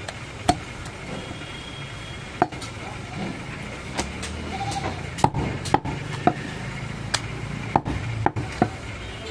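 Butcher's cleaver chopping a goat leg on a round wooden log block: about ten sharp chops at irregular intervals.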